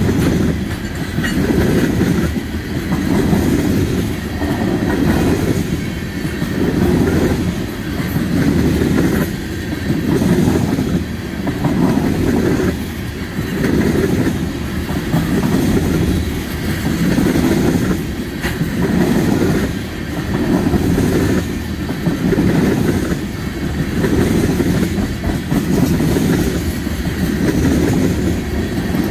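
Railroad tank cars of a freight train rolling past at close range: a steady rumble of steel wheels on the rails that swells and eases about every two seconds as each car's wheel sets go by.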